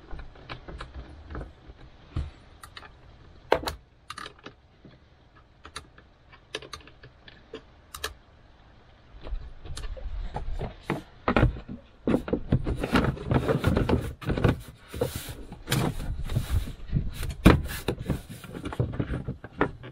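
Scattered clicks and taps as a battery cable is reconnected to the utility vehicle's battery terminal, then, from about halfway through, a denser run of louder plastic knocks and scraping as the molded plastic battery cover is worked back into place.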